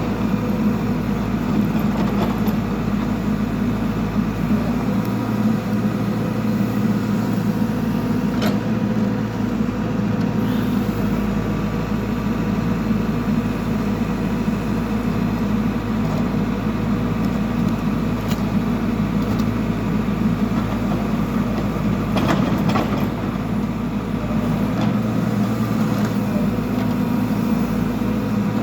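Backhoe loader's diesel engine running steadily, with a few short knocks along the way.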